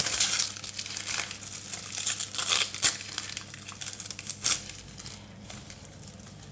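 Wrapping paper crinkling and tearing as it is pulled off by hand, with a few sharper rips. Busiest in the first few seconds, quieter after about five.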